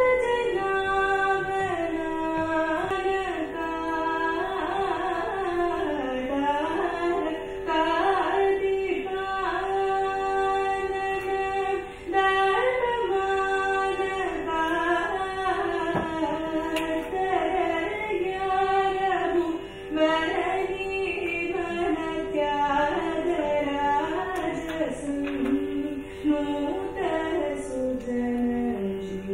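A solo voice sings an Indian classical melody in Carnatic style, with long gliding, ornamented phrases, over a steady drone that holds one pitch throughout.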